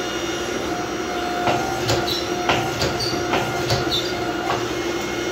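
Power hammer running with a steady hum, its ram striking hot steel about every half second from about a second and a half in, drawing out the bit of an axe head.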